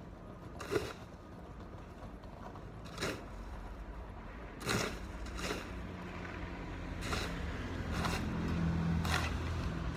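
A snow shovel scraping and striking the walkway in short strokes, about one a second, while clearing snow. A low vehicle engine hum grows louder in the second half.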